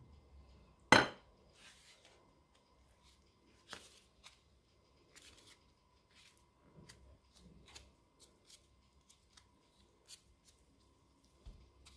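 Small kitchen handling sounds while meat pie filling is put onto dough held in a pie cutter: one sharp knock about a second in, then scattered faint clicks and rustles.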